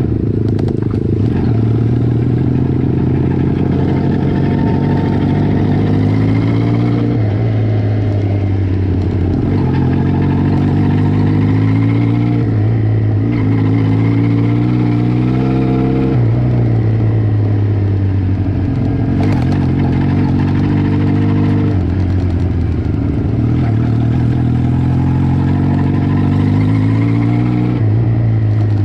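Cafe racer motorcycle engine heard from on board while riding, its pitch climbing and dropping back several times, under a steady rush of road and wind noise.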